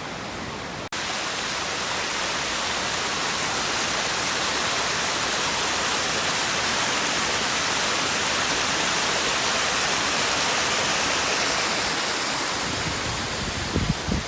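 Steady rushing hiss that starts abruptly about a second in, with a few low knocks near the end.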